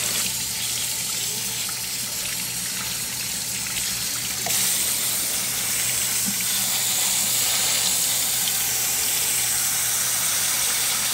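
Kitchen tap running over jasmine rice in a stainless steel mesh strainer as the rice is washed and stirred by hand: a steady water hiss that gets a little louder about four and a half seconds in.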